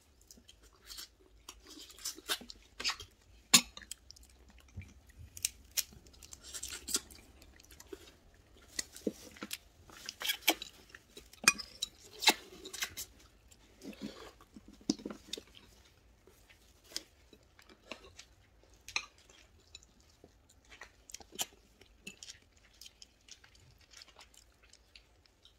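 Eating red snow crab: irregular sharp clicks and cracks of crab shell being broken and picked apart, mixed with chewing and the clink of utensils on dishes.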